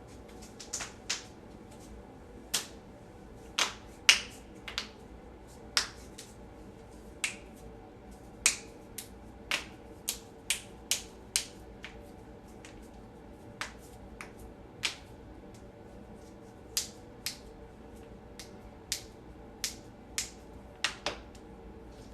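Joints cracking: about two dozen short, sharp pops at uneven intervals, some coming in quick runs, the loudest about four seconds in.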